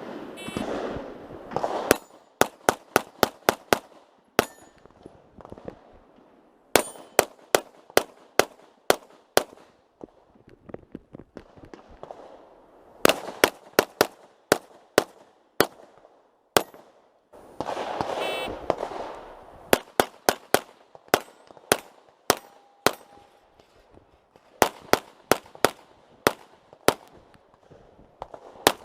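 Open-division Glock pistol firing strings of quick shots, several in each run, separated by pauses of a few seconds.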